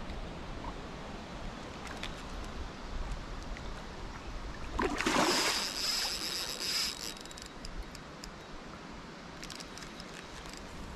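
Water and breeze noise while a hooked fish is played on a hard-bent lure rod. About five seconds in there is a louder splashing rush lasting around two seconds.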